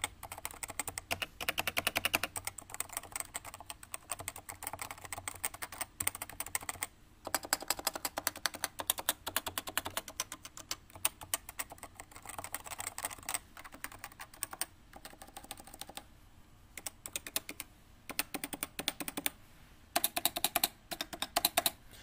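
Fast, continuous typing on a Cooler Master CMStorm Novatouch TKL keyboard with Topre hybrid switches (a spring under a rubber dome) and ABS keycaps: a dense stream of key clacks with a few short pauses. It is a pretty quiet keyboard.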